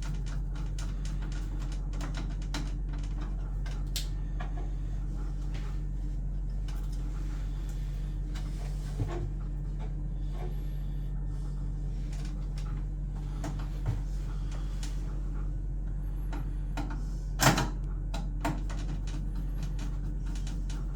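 Scattered small clicks and knocks of wires and terminals being handled and fitted on a boiler control board, the loudest knock about seventeen seconds in, over a steady low hum.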